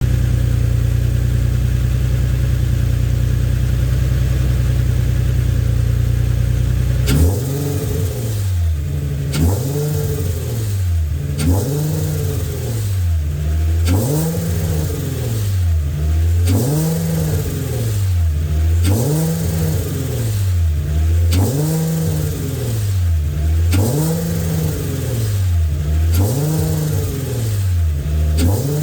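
A 2006 Infiniti G35's 3.5-litre V6 runs steadily for about seven seconds, then is revved up and let fall again over and over, about once every two seconds. It is revved to bring out a rattle that shows only between 2000 and 3000 RPM and as the revs drop, which the owner finds, by stethoscope, is not coming from the freshly rebuilt engine itself.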